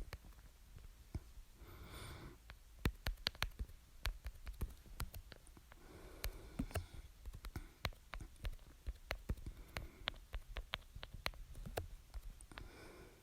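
A breath, then a run of quick, irregular sharp clicks lasting several seconds, then another breath. The clicks come too fast and carry no voice, so they do not sound like hiccups.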